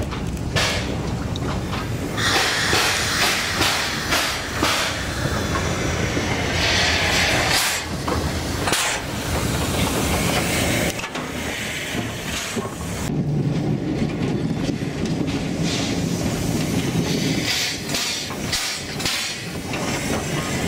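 SY-class steam locomotive moving slowly on the track, with long hissing blasts of steam and repeated knocks from its running gear. A heavier low rumble comes in about halfway through.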